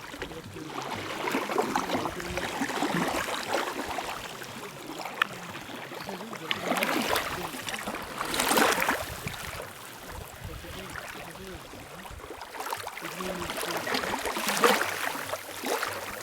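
Small waves of the lake lapping and washing at the shore, a rushing swash that swells a few times and then ebbs.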